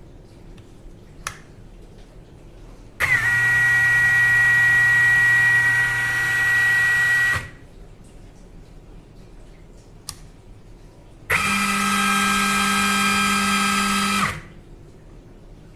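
Ingersoll Rand 20V cordless impact wrench triggered twice, spinning steadily with a whine and no hammering: about four seconds at a lower pitch, then after a pause about three seconds at a higher pitch. A few faint clicks in the pauses.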